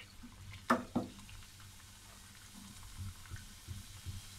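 Fafda strips of gram-flour dough deep-frying in hot oil, a soft sizzle and crackle. Two sharp knocks about a second in are the loudest sounds.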